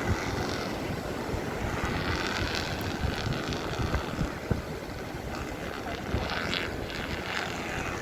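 Wind buffeting the microphone: a steady low rumble broken by irregular gusty thumps.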